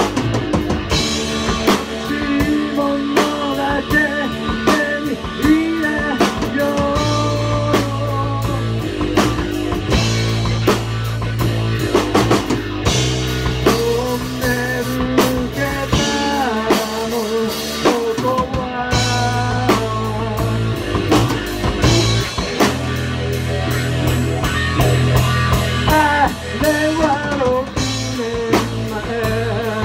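Live rock band playing: electric guitar, electric bass and a drum kit, with a voice singing over them.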